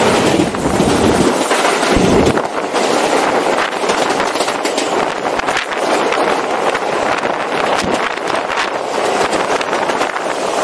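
New York City Subway A train running at speed, heard from a camera on the outside of the car: a loud, steady rush of wind on the microphone over the running of the wheels, with scattered clicks from the rails and a couple of heavier low wind buffets near the start.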